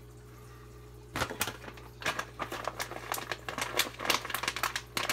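Irregular clicking and crinkling of something being handled close to the microphone, starting about a second in, over a steady low hum.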